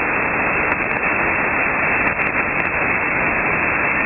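Steady hiss of band noise from an SDR receiver in upper-sideband mode on the 6-metre band, with no signal present between SSB transmissions. The hiss has no treble, cut off sharply above about 2.7 kHz by the receive filter.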